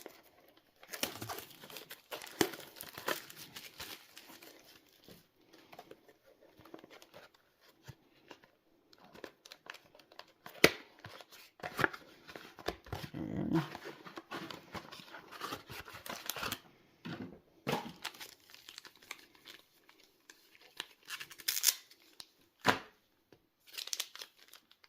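Packaging of a Pokémon booster bundle being torn open and handled: crinkling and tearing of plastic wrap and card packaging, with irregular rustles and several sharp clicks.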